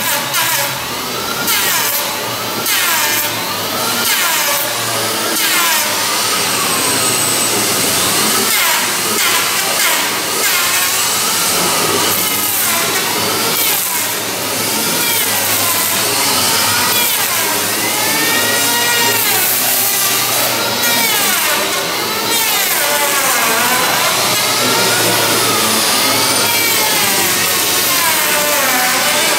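A power tool running continuously, its pitch rising and falling over and over as it works.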